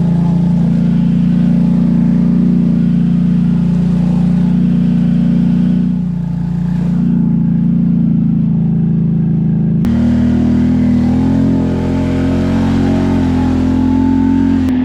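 Can-Am ATV engine running at steady throttle. About ten seconds in the engine note changes abruptly to a different, slightly higher one.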